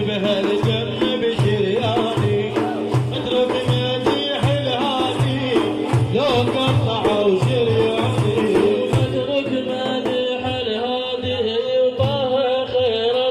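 Instrumental interlude of Iraqi religious praise music: hand drums keep a steady beat of about three strokes a second under a wavering Middle Eastern melody line.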